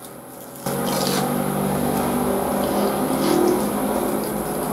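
A steady, motor-like drone that starts abruptly about half a second in and holds, with a few crunching bites of a breaded fried shrimp over it.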